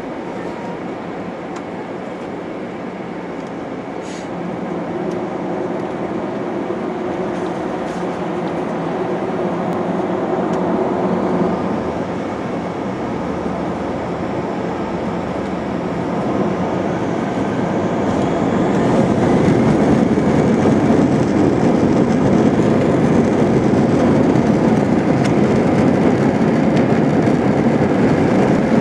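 Cabin noise of an Airbus A320 on its takeoff roll: the jet engines spooling up and the wheels rumbling on the runway as it accelerates. The rumble grows steadily louder, with a further rise a little over halfway through.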